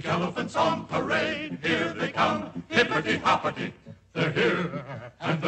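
A chorus chanting and singing in short rhythmic phrases over orchestral music, with some held, wavering notes and a brief break about four seconds in.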